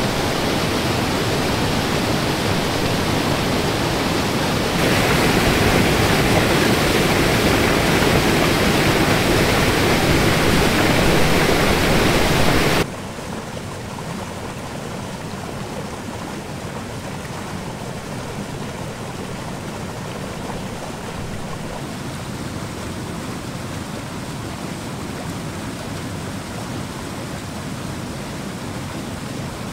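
Rushing white water at a small dam. The loud, steady rush grows louder about five seconds in, then cuts abruptly to a quieter, steady flow of water pouring down through the dam's outlet and over a weir.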